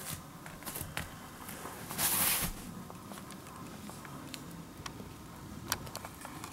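Light clicks and soft knocks of footsteps and camera handling as the camera is brought close to a cat lying in a cardboard box, with a brief loud hissing noise about two seconds in.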